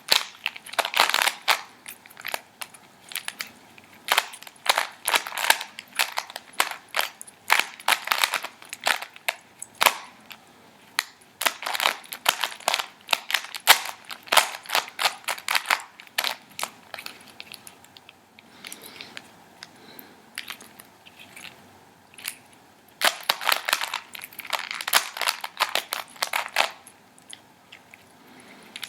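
Plastic Rubik's Cube layers being turned by hand in quick flurries, a rapid clatter of clicks and snaps. A quieter stretch comes about two-thirds of the way through, then fast turning picks up again.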